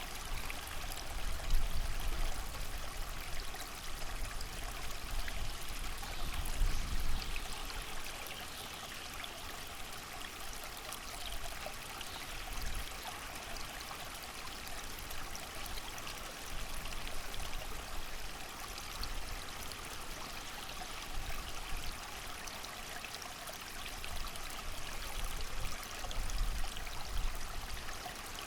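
A creek running steadily, with rain pattering over it. Wind gusts swell as a low rumble three times: near the start, about six seconds in, and near the end.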